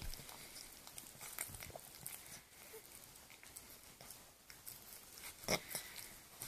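A toothless Cavalier King Charles Spaniel gumming a dental stick: faint, irregular chewing and licking clicks, with one louder click about five and a half seconds in.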